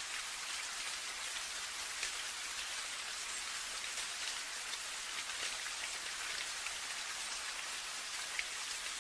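Steady rain falling, a continuous hiss with scattered individual drop ticks.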